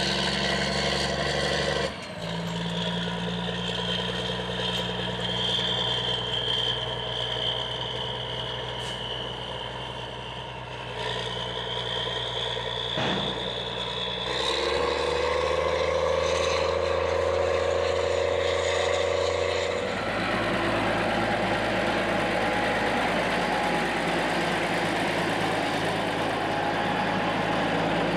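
Big Bud 525/50 four-wheel-drive tractor's Detroit Diesel 16V-92 engine running steadily while pulling a folded soil finisher, heard in several abrupt cuts. A high steady whine sits over the engine note in the first half, and in the last third the sound turns to a rougher, noisier rush as the tractor passes close by.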